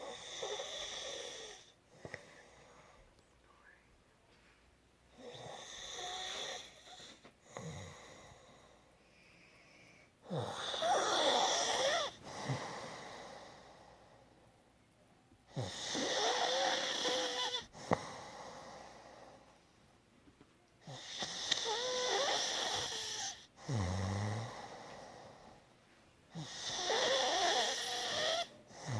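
A woman snoring in her sleep: six loud snores about five seconds apart, each lasting about two seconds, with quiet breathing between them.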